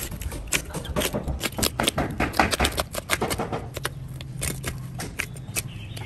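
Filleting knife scraping and clicking along the rib bones of a large green parrotfish as the fillet is cut free: a rapid, irregular run of small ticks and scrapes over a low steady hum.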